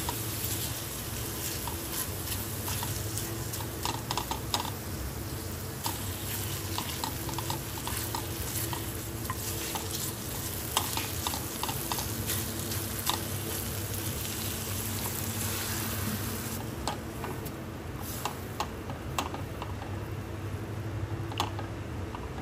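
Food sizzling as it fries in a pan, stirred with a utensil that clicks and scrapes against the pan again and again. The hiss of the frying softens about three-quarters of the way through.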